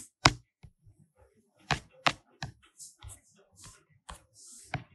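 Scattered light clicks and taps at irregular spacing, from navigating a document on a tablet or computer, with a brief soft hiss about four and a half seconds in.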